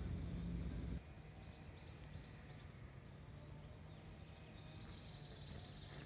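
Burn pile of oak branches crackling with scattered pops for about a second, then the sound drops abruptly to quiet outdoor ambience with only faint crackles. A faint, thin high note comes in near the end.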